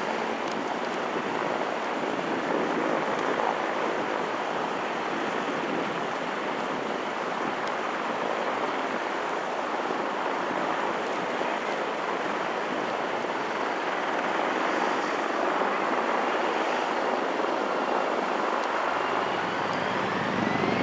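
Steady roar of jet aircraft engines heard from afar, with a thin turbine whine rising in pitch near the end as the engines spool up.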